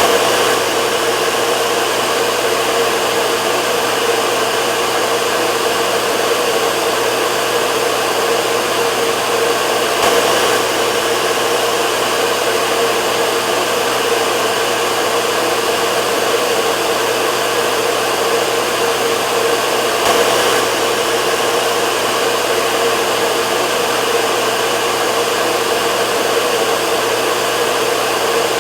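Hair dryer running steadily: an even rush of air with a steady motor tone, unchanging apart from slight swells about every ten seconds.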